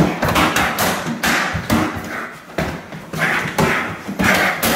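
Rapid flurry of strikes landing on a freestanding BOB torso training dummy: a run of sharp thumps, about two or three a second, without a break.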